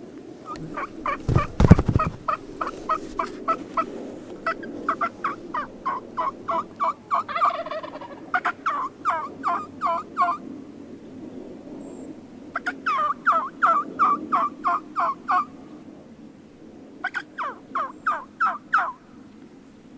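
Turkey calling in long runs of short, evenly spaced notes, about three to four a second, in three bouts, the first about ten seconds long. A single low thump comes about two seconds in.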